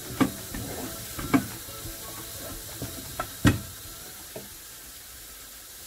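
Green peas and corn sizzling in a frying pan while a spatula stirs them, with a few sharp clacks of the spatula against the pan. The loudest clack comes about three and a half seconds in, after which it is only the sizzle.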